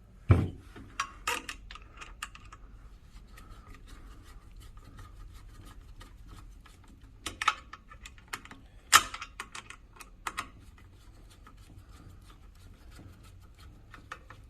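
Scattered clicks and small knocks of a bolt, spacer and new tension knob being fitted and the bolt screwed in by hand. The loudest knocks come about a third of a second in and again about nine seconds in, with a quieter cluster around seven seconds.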